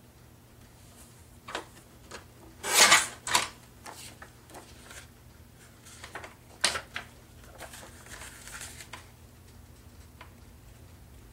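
Paper being handled: sheets and an envelope rustling and sliding against each other and the craft mat in short, irregular bursts, the loudest about three seconds in.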